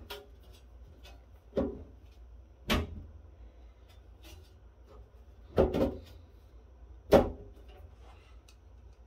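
Sheet-metal top cover of a rack-mount audio processor clunking against its chassis as it is pried and lifted by hand, a really tight fit: five or so separate knocks, the loudest near the end.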